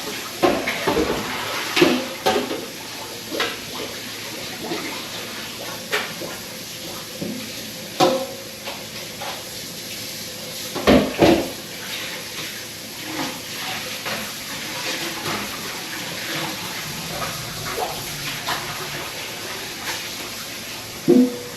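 Water running at a sink with irregular clatters and knocks of things being handled and rinsed during cleaning; the loudest knocks come about halfway through and near the end.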